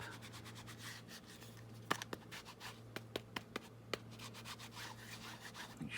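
A rubber stamp being inked on an ink pad: faint rubbing, then a quick run of light taps about two seconds in.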